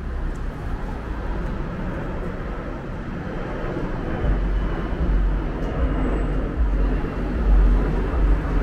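City street ambience: a steady wash of traffic noise, with wind buffeting the microphone in uneven low thumps from about halfway through.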